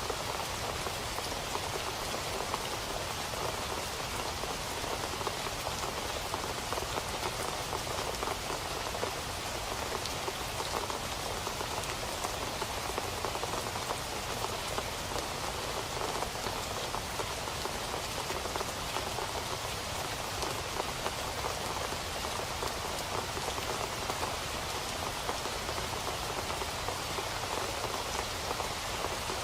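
Steady rain falling and pattering on a surface, an even hiss of many small drops with no let-up.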